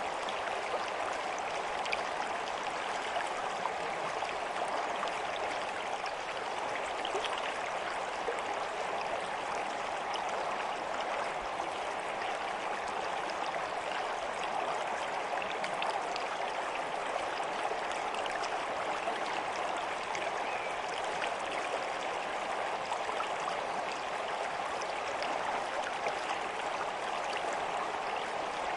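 Running water flowing steadily, an even rush with fine splashing flecks and no change over the whole stretch.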